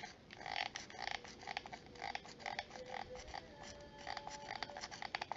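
Hot glue gun being squeezed as it lays glue down, giving faint squeaky clicks that repeat about every half second.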